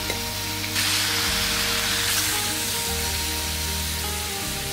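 Background music with a steady bass line, over the sizzle of freshwater snails frying in a wok. The sizzle gets stronger about a second in.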